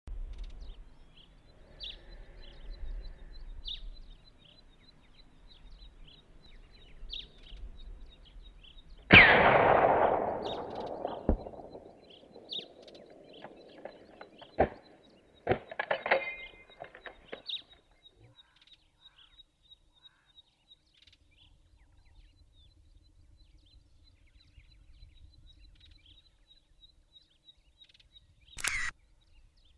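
A single hunting-rifle shot about nine seconds in, followed by a long rolling echo that dies away over a few seconds. Faint high ticking runs underneath, with a few sharp clicks later on.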